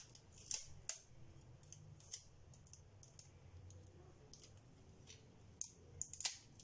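Faint, scattered clicks and crinkles of paper strips and sticky tape being handled, with a few sharp ones near the start and a cluster near the end.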